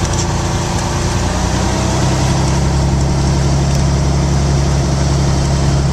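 Engine and propeller of a 1960 Cessna 210, heard from inside the cabin, running steadily as the plane moves on the ground. About two seconds in, the engine note steadies and grows slightly louder.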